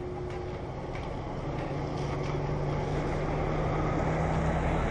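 A motor vehicle's engine running with a steady low drone and road noise, growing louder.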